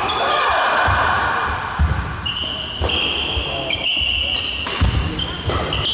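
Badminton doubles rally: racket strings striking the shuttlecock several times in quick succession, with court shoes squeaking on the hall floor. Voices talk in the background in the first second or so.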